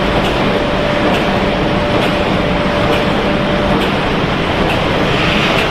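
Snack pellet extrusion production line machinery running: a loud, steady mechanical din with faint light ticks about once a second and a faint whine that stops a little past the middle.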